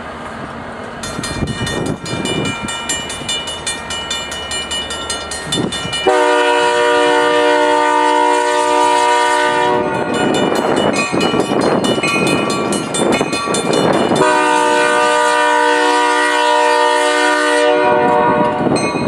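Union Pacific SD70M diesel locomotive sounding its multi-chime horn in two long blasts of about three and a half seconds each, the first about six seconds in and the second about fourteen seconds in, for the grade crossing. From about a second in, a grade-crossing bell rings rapidly under the horn and the rumble of the passing locomotives.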